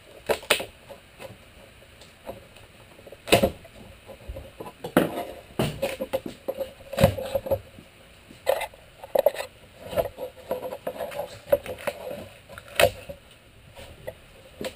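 A glued plywood strip being pried off a plywood panel with a screwdriver: irregular sharp cracks and knocks with creaking and scraping as the glue joint breaks loose.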